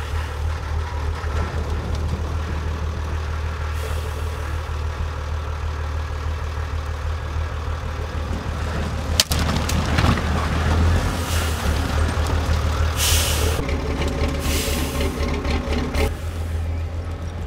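Heavy off-road truck's diesel engine labouring at low revs, with several short air-brake hisses, the loudest two near the end. A sharp knock sounds about nine seconds in.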